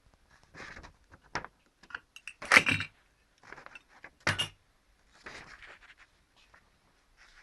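Handling sounds from hand-printing a woodcut: a string of short scrapes and rustles with sharp knocks between them, the two loudest about two and a half and four seconds in.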